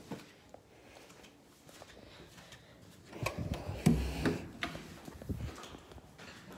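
Near silence at first. About three seconds in, an irregular run of soft thumps and knocks begins, from footsteps and the phone being handled while its holder moves onto a wooden staircase.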